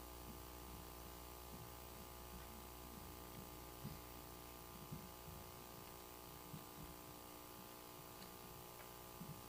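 Near silence filled by a steady electrical hum with several fixed tones, with a few faint soft knocks.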